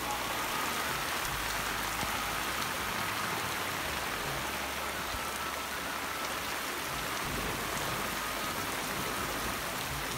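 Steady rain falling on wet ground, an even hiss.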